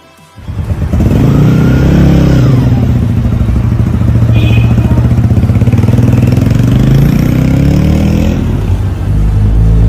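Loncin CR250 motorcycle's 249 cc engine running. It revs up and back down about a second in, then holds a steady note.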